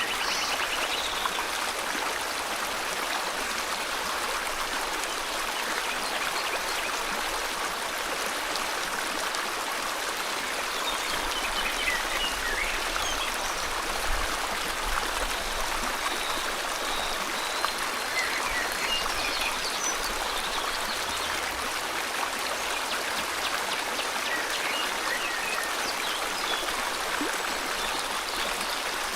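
Steady rush of a flowing river, with scattered bird chirps and short calls now and then above it.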